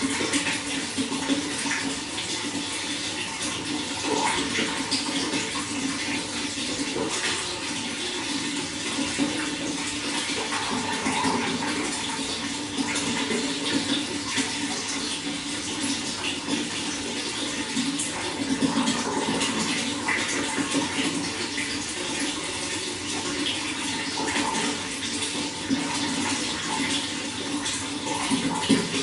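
Running water flowing steadily and continuously, with a constant rush and many small splashes throughout.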